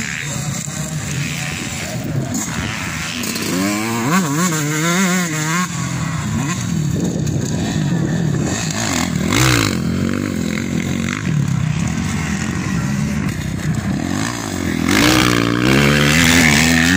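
Dirt-bike engines revving hard as riders race around a grasstrack course, the engine note rising and falling over and over with the throttle. Bikes are loudest about four seconds in and again near the end.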